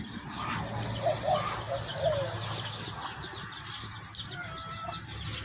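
A few short bird calls in quick succession, from about half a second to two seconds in, with fainter high chirps scattered through, over a steady low rumble.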